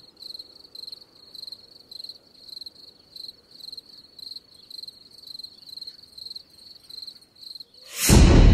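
Crickets chirping at night, a steady high pulsing chirp about two or three times a second. About eight seconds in, a sudden loud sting of dramatic music with a deep rumble cuts in over them.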